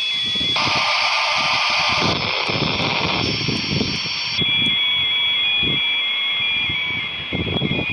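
Satellite telemetry signal received on a Quansheng handheld radio: steady tones and stepping data tones over receiver hiss, the hiss changing in level a few times. Wind buffets the microphone underneath.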